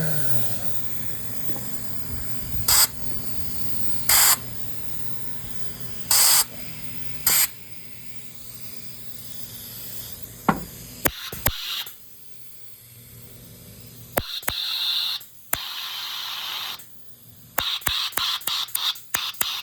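Compressed-air blow gun fired into a hydraulic pump's oil passageway in short hissing blasts, meant to pop a seal loose from behind. First four separate blasts, then longer hisses with clicks of the trigger, and a quick run of short blasts near the end.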